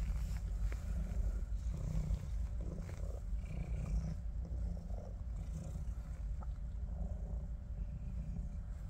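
Domestic cat purring steadily while being scratched on the neck and back.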